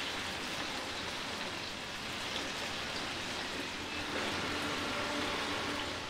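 Chicken pieces sizzling steadily as they shallow-fry in hot oil in a frying pan.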